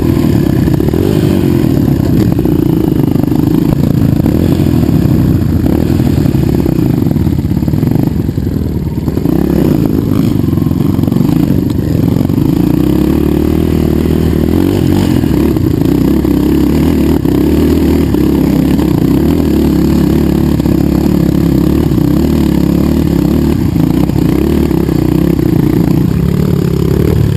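Dirt bike engine running steadily under load as the bike is ridden along a rough enduro trail, with a brief slight dip about eight seconds in.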